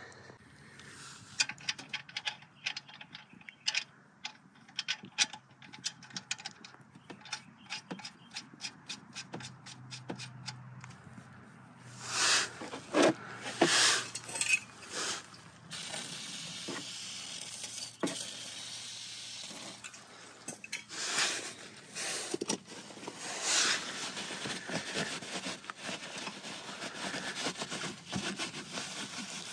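Handling noise under a car. A run of light clicks comes first, then rough scraping and rubbing noises as a shop rag is wiped over the underbody around the oil pan.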